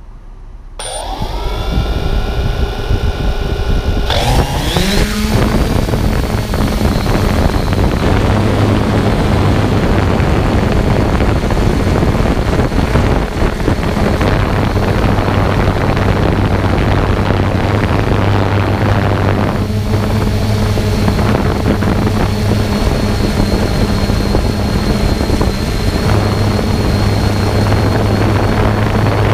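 3DR Solo quadcopter's electric motors and propellers spinning up about a second in, rising sharply in pitch at takeoff around four seconds in, then a steady buzzing hum with a thin high whine as it flies, heard from the camera on the drone itself.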